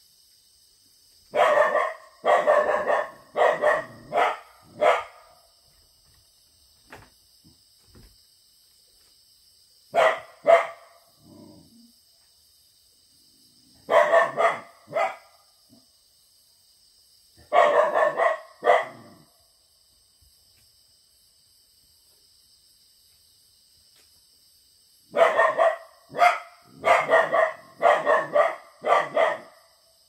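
Young Jindo-mix puppy barking in sharp runs of two to several barks, with pauses of several seconds between them and a rapid run near the end: alert barking at wild boars coming down nearby. Under the barking runs a steady high chorus of crickets and other grass insects.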